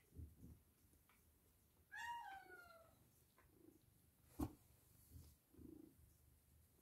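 Domestic cat giving one short meow that falls in pitch about two seconds in, with faint purring as it is stroked. A single sharp click sounds just after the middle.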